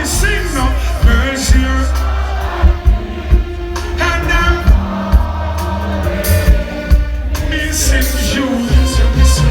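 Live reggae band playing with a heavy bass line and regular drum hits, with singing over it.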